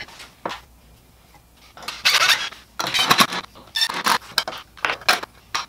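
Irregular clattering and scraping of a wooden block and metal drill bits being handled and fitted into a drill bit organizer, in a run of short bursts from about two seconds in.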